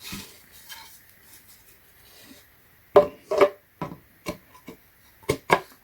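Wooden parts of a flat-pack nightstand being handled during assembly. A short scrape comes at the start, then about three seconds in a series of sharp wood-on-wood knocks: two loud ones close together, several single taps, and two more near the end.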